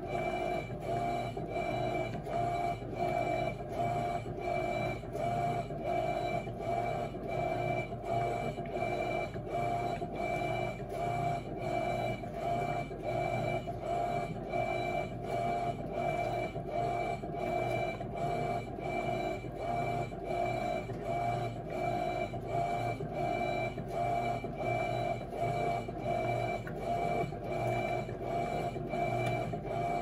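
Electrolux LT12F top-loading washing machine, fitted with a new transmission, agitating on its heavy-duty cycle. The motor and transmission hum in an even, pulsing rhythm of a little over one stroke a second as the agitator swings back and forth through the water and clothes.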